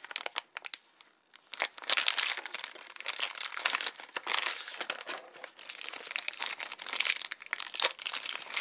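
Thin clear LDPE plastic blind-bag wrapper crinkling as hands squeeze and pull it open, with a brief lull about a second in.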